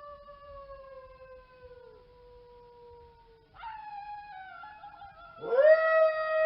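Canine howling. A long, slowly falling howl fades out about three and a half seconds in, another starts right after, and near the end a louder howl sweeps sharply up and then holds a steady pitch.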